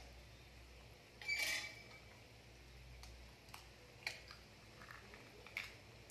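Raw eggshell being cracked and pulled apart by hand: faint light clicks and crackles, with a brief louder rustle about a second in.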